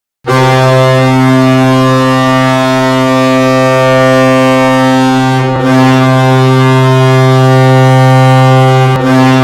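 Sibir Novosibirsk's hockey goal horn sounding one long, deep, steady blast. It starts abruptly and dips briefly twice, about five and a half and nine seconds in.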